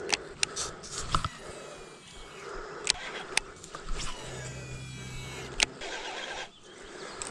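Shimano SLX baitcasting reel being handled and cast: sharp clicks from the reel and handle, and a steady whirr for about a second and a half in the middle as the spool spins and pays out line.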